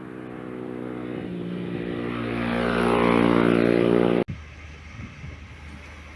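An engine running at a steady pitch, growing steadily louder as it draws near, then cut off abruptly about four seconds in; a quieter low steady hum follows.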